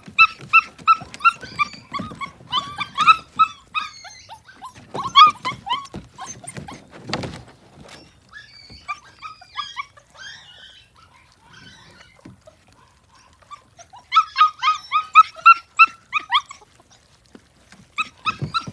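Six-week-old puppies whining and yelping in quick runs of short, high cries, in bursts at the start, around five seconds in, and again from about fourteen to sixteen seconds.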